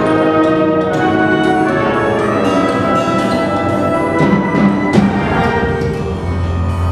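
Concert wind band playing held chords, with brass prominent. A sharp hit comes about five seconds in, and a low held note enters near the end.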